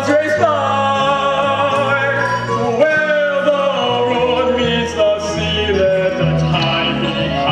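Stage musical number: a singer holding long notes with vibrato over a band with a steady bass line.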